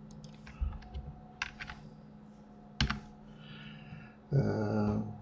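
Computer keyboard keys and mouse buttons being pressed a handful of times, separate sharp clicks over the first three seconds. Near the end comes a louder low hum lasting about half a second.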